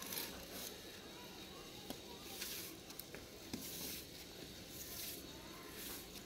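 Soft grass broom swishing across a concrete floor in short sweeping strokes, one every second or two.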